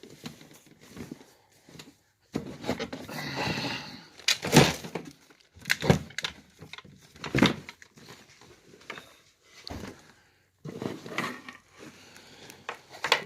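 Rummaging through bags and boxes of belongings: rustling, with several sharp knocks and clatters of objects being picked up and set down.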